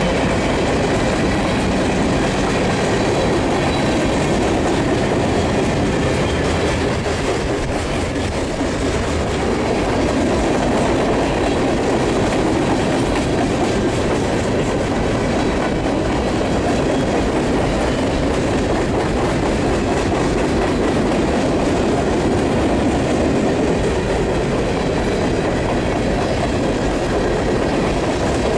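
Freight train of covered hoppers and boxcars rolling past close by: a steady, loud noise of steel wheels running on the rails.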